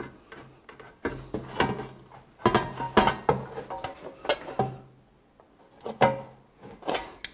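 Right-cut tinsmith's snips cutting into a sheet-metal gutter in short strokes: a string of sharp metallic snips and clicks at an irregular pace, with the thin metal rattling as the gutter is handled, and a brief pause about two-thirds of the way through.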